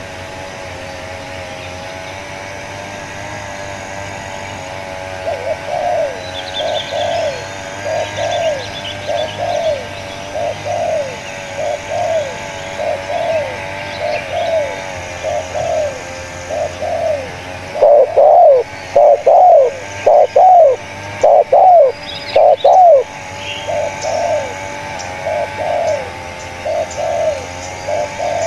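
Spotted doves cooing, a long run of short coo notes, one to two a second. From about 18 to 23 seconds in, a dove close by coos much louder.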